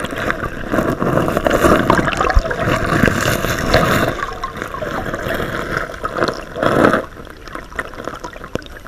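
River water gurgling and rushing around a camera held underwater in a stream. Louder through the first four seconds, with another surge near seven seconds, then quieter.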